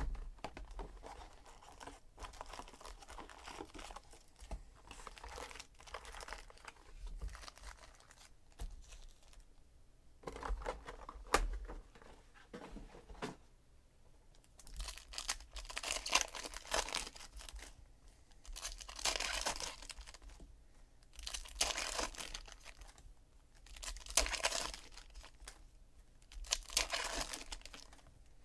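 Hands handling a box of 2017 Donruss Optic baseball card packs, then tearing open the foil-wrapped packs one after another. The tearing and crinkling comes in bursts about every two to three seconds over the second half.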